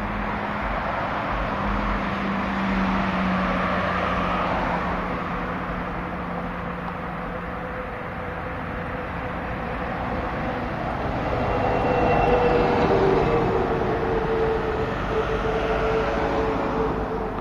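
Road traffic: cars passing, a steady rush of tyres and engines that swells as vehicles go by, loudest about twelve seconds in.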